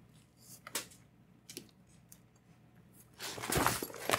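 Handling of a fabric carry bag and the fabric light tent: a few faint clicks and rustles, then louder rustling of the fabric starting about three seconds in.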